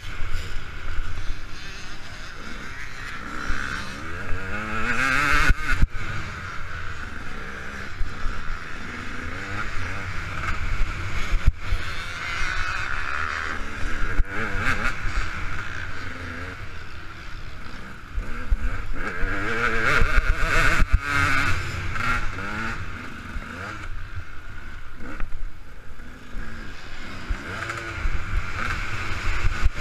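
KTM 200 EXC's single-cylinder two-stroke engine ridden hard, its pitch rising and falling again and again as the throttle is opened and shut through the gears. A steady low wind rumble sits on the microphone underneath.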